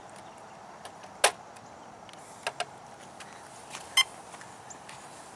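A few short, sharp clicks over steady outdoor background noise: a loud one about a second in, a quick pair midway, and a brighter click with a brief ring near the end.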